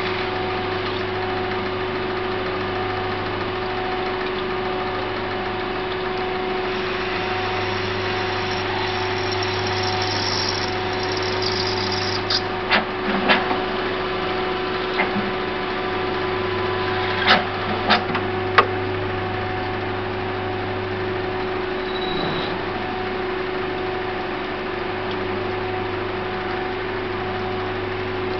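Tornos Bechler ENC 16 CNC lathe running with a steady hum, with a brief high hiss and then several sharp clicks and knocks around the middle.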